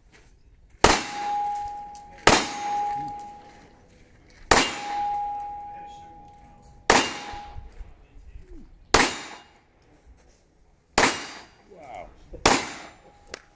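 Seven pistol shots at slow, uneven intervals of about two seconds, the first three each followed by a clear ringing tone from a hit steel target.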